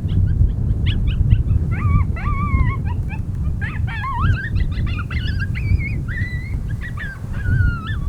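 Several coyotes yipping and howling together in a territorial chorus, with wavering calls that rise and fall and overlap, from about two seconds in and thickest around four to five seconds. A steady low rumble runs underneath.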